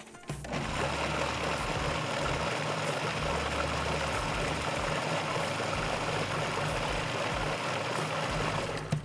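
Food processor motor running steadily, blending cooked chicken livers and cream into a smooth pâté. It starts just after the beginning and stops shortly before the end.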